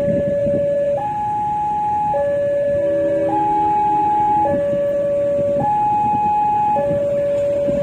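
Railway level crossing warning alarm sounding: an electronic two-tone signal alternating between a lower and a higher note, each held about a second, warning of an approaching train. A lower tone briefly joins in about halfway through, over a steady rumble.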